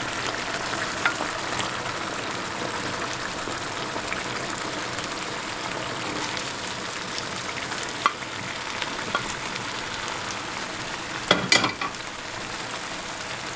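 Tomato sauce with oil and pepper paste sizzling and bubbling steadily in a frying pan while boiled bulgur köfte are tipped in from a glass dish. A few soft knocks come through the hiss, the loudest pair near the end.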